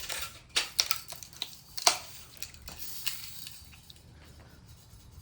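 Daisy Red Ryder BB guns clicking and snapping irregularly as they are cocked and fired, the loudest about two seconds in, fading out after about three seconds.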